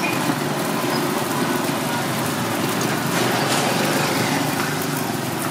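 Steady sizzle of banana fritters deep-frying in a wok of hot oil, mixed with the steady hum of a small engine running close by.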